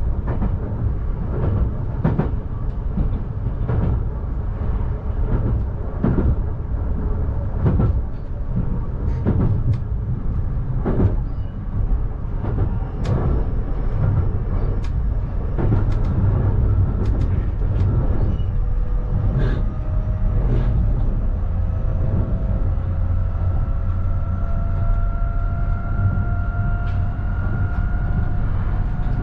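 12000-series electric limited express train running on the rails: a steady low rumble with repeated wheel clicks over rail joints. In the second half a steady whine comes in and slowly rises in pitch.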